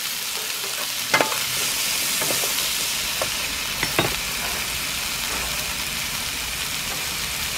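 Mixed vegetables (peppers, carrots, onion, tomatoes) sizzling as they are stir-fried in a frying pan with a wooden spatula: a steady hiss, with a few sharp taps of the spatula against the pan in the first half.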